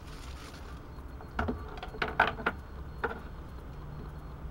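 A few short scrapes and knocks of a beeswax candle being handled and worked with a tool, grouped between about one and a half and three seconds in, the loudest just after two seconds.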